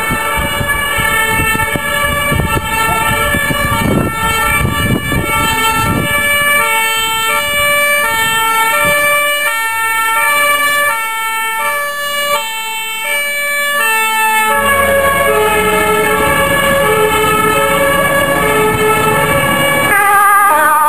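Dutch fire engines' two-tone sirens sounding on an emergency run, switching steadily between a high and a low pitch as they approach. About two-thirds of the way through a second siren joins out of step with the first, over the trucks' engine rumble, and a quick wavering tone comes in near the end.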